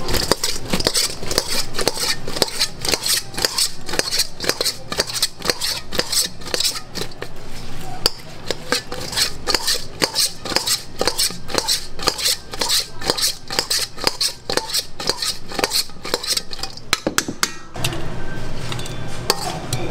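A metal spoon clacking and scraping against a stainless steel mixing bowl in quick, repeated strokes as fried pork pieces are tossed in sticky spicy sauce. The clatter stops near the end as the pieces are tipped out onto a plate.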